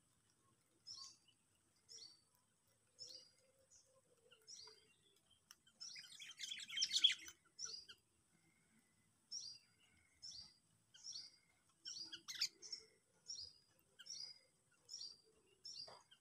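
Sooty-headed bulbul (kutilang) calling: short, high, falling chirps repeated about twice a second, with a louder rapid burst of calls near the middle and another sharp call a little later.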